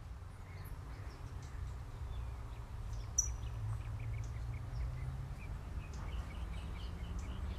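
Faint, short bird chirps over a steady low rumble, the chirps coming more often near the end, with a single sharp click about three seconds in.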